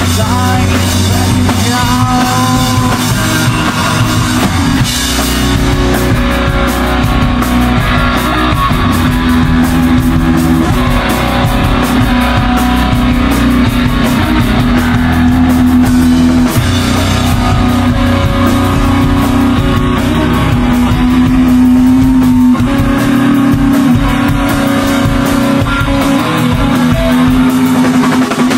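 Punk band playing live and loud: electric guitar and drum kit.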